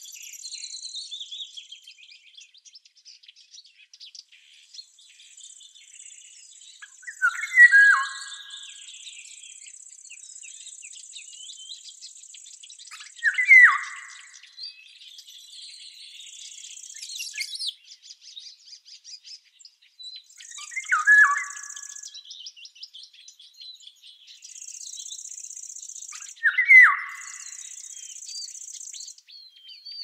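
A songbird singing one short, loud, falling phrase four times, about every six seconds, over fainter twittering of other birds. A high steady buzz, like insects, starts and stops in stretches of a few seconds.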